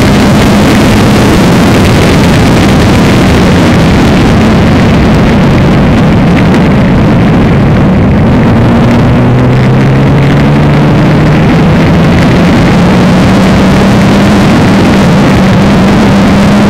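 Reynard single-seater racing car at speed, heard onboard: its engine runs hard under a loud, steady rush of wind and road noise. The engine note sits lower through a corner around the middle and climbs slowly again through the later part.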